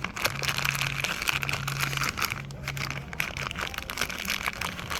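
Plastic parts packaging being torn open and crinkled by hand: a dense run of irregular crackles.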